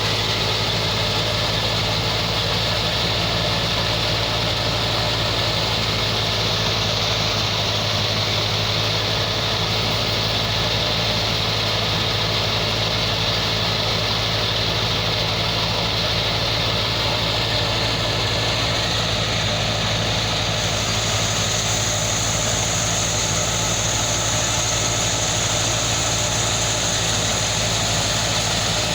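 Wheat thresher running steadily with its driving engine, a constant loud mechanical drone with a steady low hum. A higher hiss joins about two-thirds of the way through.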